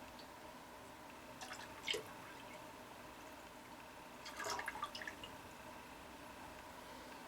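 Faint water dripping and splashing into the humidifier's water tank, in two short spells about one and a half and four and a half seconds in.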